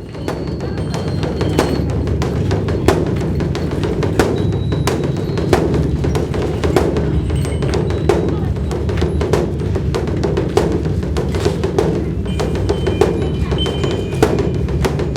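Buddhist dharma drum (beopgo) being beaten in a continuous rolling pattern: a dense low rumble with sharp stick strikes standing out every half second or so.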